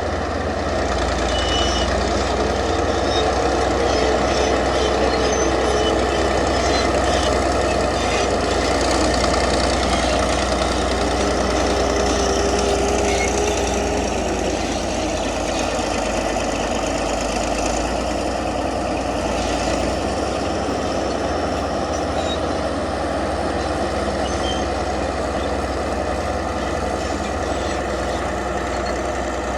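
Komatsu D155A crawler bulldozer's diesel engine running steadily, with a drawn-out whine heard twice, a few seconds each, in the first half.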